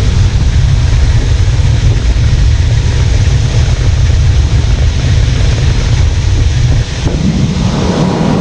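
Farm harvest machinery running: a heavy, steady low rumble that changes character about seven seconds in.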